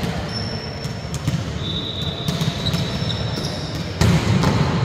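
Volleyballs being hit and bouncing on a gym floor: several sharp slaps and thuds, the loudest about four seconds in.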